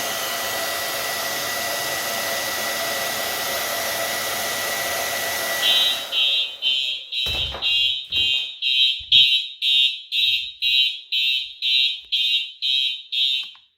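An electric hot-air blower runs steadily with a thin whistling tone, heating a heat detector to trip it. It stops about six seconds in, and a fire alarm sounder starts beeping about twice a second, with a couple of low knocks, until it cuts off just before the end.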